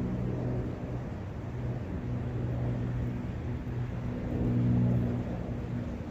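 A steady, low engine hum from a motor vehicle or aircraft, swelling briefly about four to five seconds in, over the even rushing hiss of wind and a brook.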